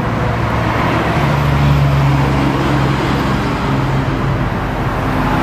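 A steady mechanical drone with a low hum, unchanging throughout.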